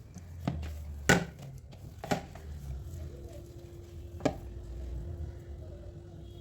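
Four sharp knocks, the second the loudest, over a low rumble, with a faint steady hum that begins about halfway through.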